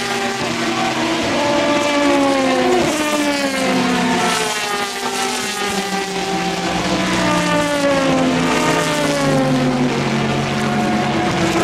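A pack of endurance race cars, LMP2 prototypes and GTE cars including a Corvette, passing one after another through a corner, several engines heard at once. Their engine notes overlap and mostly fall in pitch, with some rising again as cars pull away.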